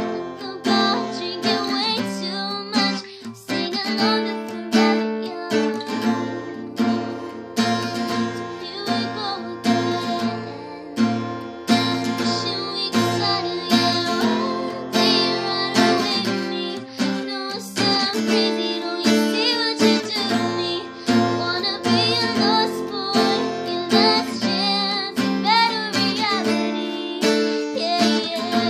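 A woman singing while strumming an acoustic guitar in a steady rhythm.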